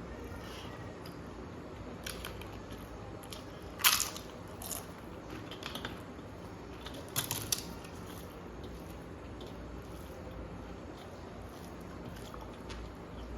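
A person eating close to the microphone, with quiet chewing and a few sharp crunches. The loudest crunch comes about four seconds in and another pair about seven seconds in.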